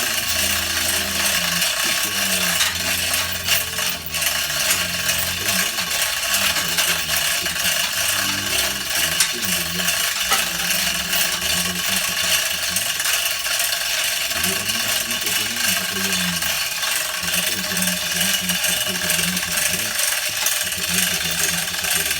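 Small Chinese-made backhoe running: a loud, steady mechanical rattle and clatter.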